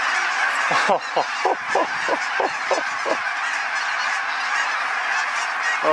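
A huge flock of lesser snow geese calling overhead: a dense, steady din of countless overlapping honks. Between about one and three seconds in, a nearer series of about eight calls stands out, each falling in pitch.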